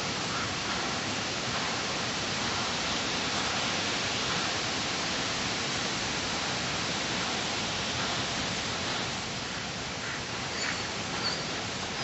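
A steady, even hiss, with a couple of faint short sounds near the end.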